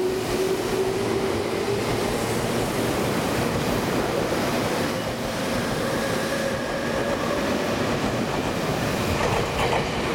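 Tobu Railway electric commuter train accelerating away from a station platform: its traction motor whine rises slowly and steadily in pitch over the rolling noise of the wheels on the rails.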